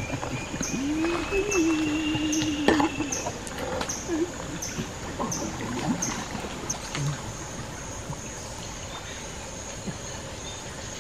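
Water sloshing and trickling around a man wading waist-deep in a creek while he frees a snagged cast net, over steady insect noise with a high chirp repeating about twice a second that stops a little past halfway. A drawn-out wavering call sounds for about two seconds near the start.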